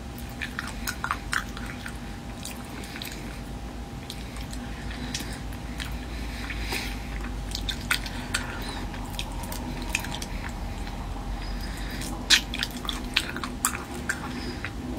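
Mouth sounds of eating raw marinated small white shrimp with the shells on: chewing and biting, with wet squishing and scattered short crisp crackles from the shells. A steady faint hum lies underneath.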